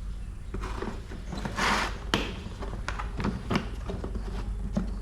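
A hard plastic drill case being opened and its contents handled: a string of sharp clicks and knocks, with a brief rustle about one and a half seconds in.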